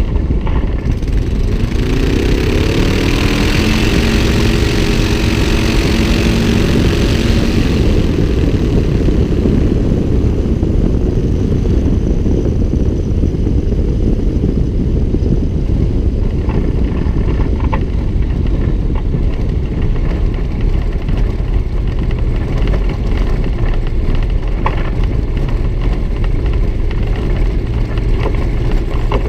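Small propeller airplane's engine and propeller running with heavy wind rumble on the microphone. About two seconds in the engine note rises as power comes up and holds until about eight seconds, then drops back to a lower level under the rumble of the roll across the dry lake bed.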